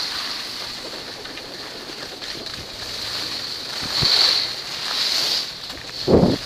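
Skis sliding and scraping over groomed snow, with wind rushing across the camera microphone; the hiss swells a few times as the skier turns. A brief low burst comes near the end.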